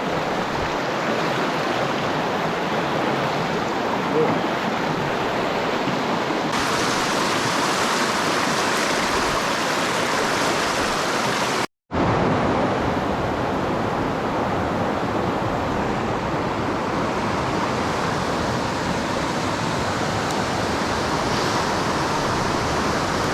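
Rushing creek water, a steady loud flow, turning hissier about six seconds in. The sound cuts out briefly about twelve seconds in.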